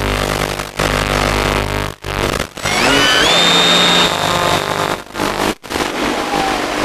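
Hissy, noisy onboard FPV audio from a Cularis electric motor glider, with a few brief cut-outs. About two and a half seconds in, the electric motor spins up with a rising whine that levels off high and holds for about a second before it stops.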